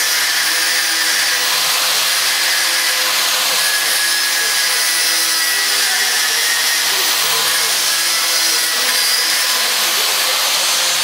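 Electric arc welding on a bicycle frame: a loud, steady hiss.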